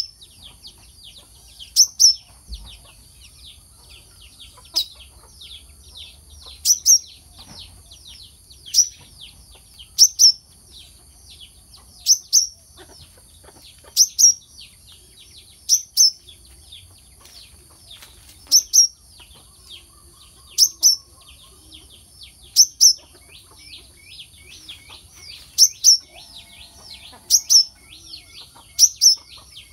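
Brown-throated sunbird (kelicap mayang kelapa) calling: a sharp, loud chirp about every two seconds over continuous thin, fast high twittering, with a steady high hiss behind it.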